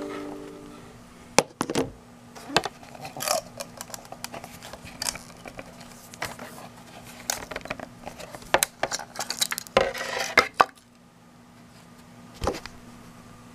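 Thin spring-steel 3D-printer build sheet and the plastic print on it being handled on a hard bench: a scattered series of sharp clicks, taps and light metallic clinks, with a short rattle about ten seconds in.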